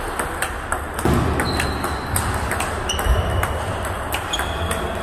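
Table tennis balls being struck by paddles and bouncing on tables in several rallies at once: a dense, irregular stream of sharp clicks and short pings.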